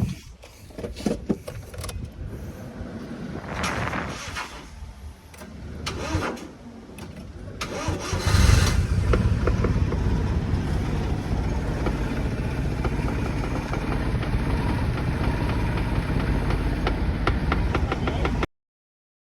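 Suzuki F6A three-cylinder engine catching about eight seconds in after some clicks and handling noise, then idling steadily: it starts now that power to the starter has been restored.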